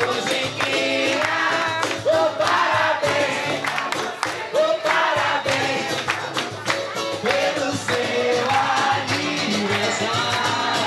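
Music: an upbeat song with voices singing over dense, steady percussion.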